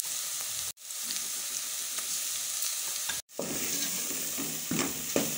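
Chopped onions frying in hot oil in an aluminium pot, a steady sizzle, with a wooden spoon stirring and scraping the pot near the end. The sound cuts out briefly twice.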